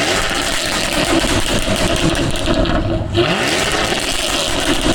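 2017 Jaguar F-Type R's supercharged 5.0-litre V8 being revved through a loud exhaust. The revs climb at the start and again about three seconds in.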